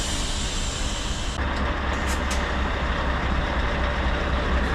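Lorry's diesel engine idling with a steady low rumble, with two short high hisses about two seconds in.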